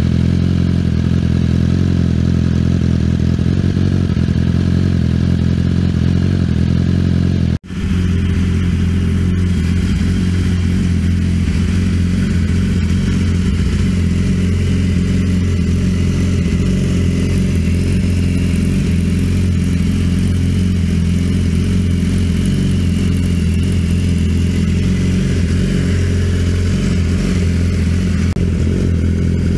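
BMW S 1000 RR inline-four engine idling steadily through an Arrow slip-on exhaust, with no revving. About 7 to 8 seconds in, the sound cuts out for a moment and the idle carries on from a second recording.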